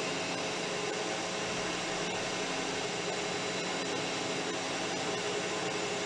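Metal lathe running steadily at a slow spindle speed during a threading scratch pass: a constant machine hum with several steady tones.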